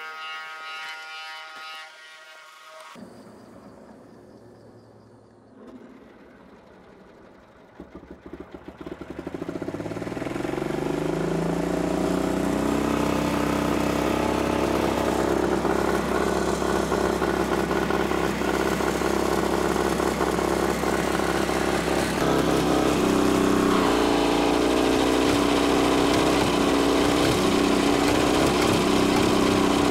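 A 3/4 hp electric motor belt-cranks the starting (pony) engine of a 1942 Caterpillar D2 crawler. About eight seconds in, the sound rises in pitch as it spins up and the engine catches, then runs steadily, getting louder about two-thirds of the way through.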